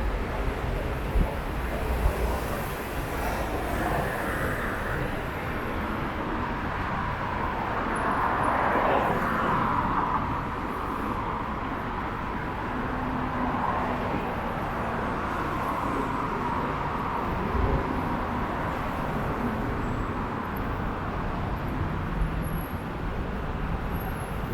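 City street ambience of passing road traffic: a steady wash of vehicle and tyre noise, swelling louder for a couple of seconds about a third of the way in.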